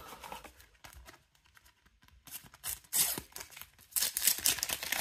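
A sticker pack's wrapper crinkling and tearing as it is opened: faint rustling at first, then louder bursts from about two seconds in and again near the end.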